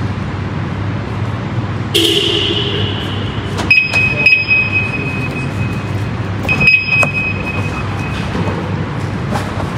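Steady low rumble of a car on the move, with two sustained high beeps about three seconds apart, each lasting over a second.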